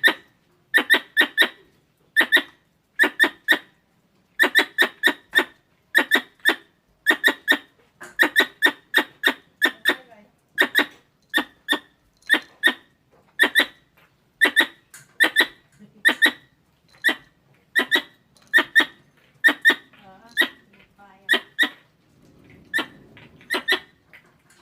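Squirrel calling: sharp chirps in quick pairs and triplets, repeated over and over at a steady pace, the sort of call used to lure squirrels.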